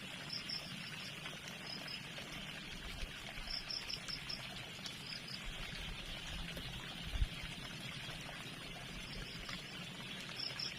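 A small river flowing and trickling steadily, with short runs of high chirps from time to time and a single low bump about seven seconds in.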